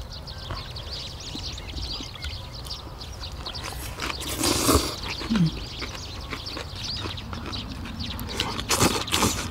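Birds chirping over a steady low background hum while people eat, with two brief louder sounds, about four and a half and nine seconds in.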